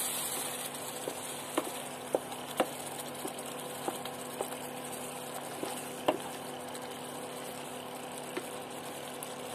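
Dum aloo masala gravy with potatoes sizzling and bubbling in a pan as it is stirred: a steady hiss with scattered, irregular sharp clicks and pops.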